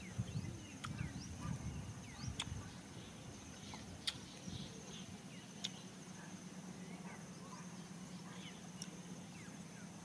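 Insects trilling steadily in grassland, with faint scattered bird chirps. Five or so sharp clicks are heard over it, the loudest about four seconds in.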